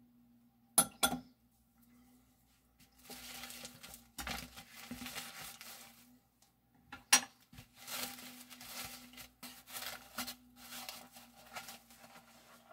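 Metal tongs clink sharply twice against an amber glass saucepan about a second in, and another sharp clink comes about seven seconds in. Between the clinks are stretches of soft hiss and rustle over a faint steady hum.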